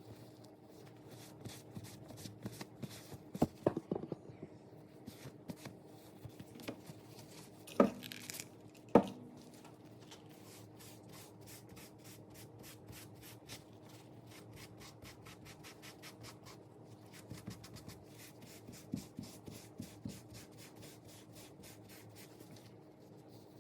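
Hands rubbing and handling leather wallets: soft scratchy rubbing and small ticks, with a few sharp knocks about 4 s and 8–9 s in, over a faint steady hum.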